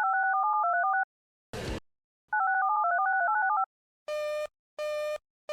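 Synthesized electronic tones: a quick stepping two-note beeping tune lasting about a second, a short burst of static, then the same tune again. Near the end, evenly spaced buzzy beeps begin, repeating about one and a half times a second.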